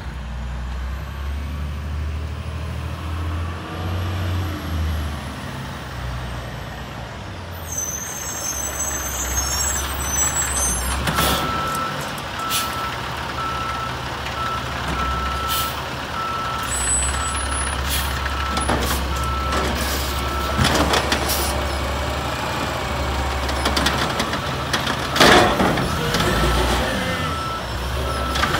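Automated side-loader garbage truck's diesel engine running, with a steady repeating warning beep starting about a third of the way in. Several sharp hisses and clunks come through, the loudest near the end as the lift arm raises a bin.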